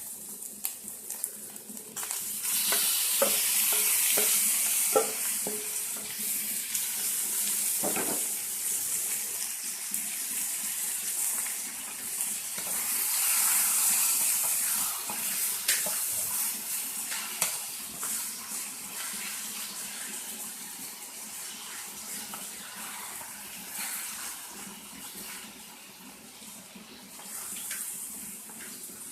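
Raw chicken pieces sizzling in a pan of hot oil with golden-brown fried onions and ginger-garlic paste, a steady hiss that swells twice. A few short knocks in the first several seconds as the pieces go in and are stirred.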